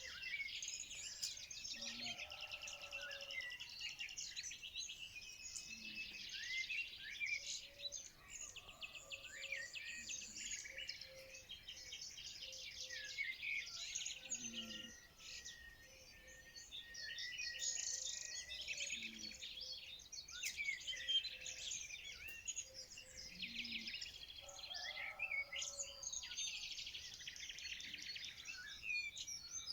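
Many small songbirds chirping and trilling together in a continuous, dense chorus.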